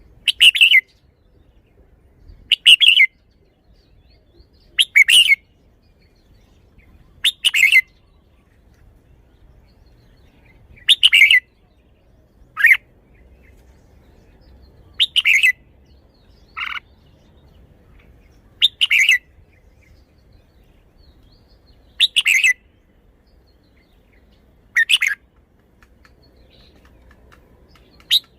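Red-whiskered bulbul singing: about a dozen short, loud phrases of a few quick notes, each about half a second long, repeated every two to four seconds.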